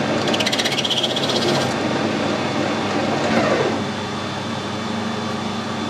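Metal lathe turning a brass union in a collet chuck, with a rapid high-pitched buzz from the tool cutting for about a second and a half near the start. A few seconds in, the spindle winds down with a falling whine and stops, leaving a steady hum.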